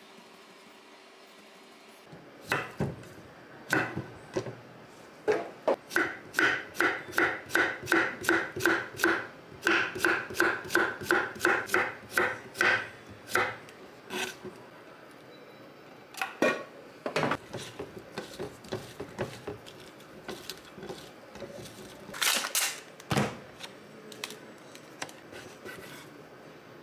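Kitchen knife slicing cucumber on a wooden cutting board: a fast, even run of knocks of the blade on the board, about two and a half a second, then slower, scattered cuts.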